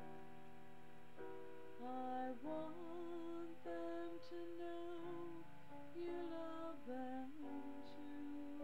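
A woman singing a slow, gentle song over a soft instrumental backing of sustained chords.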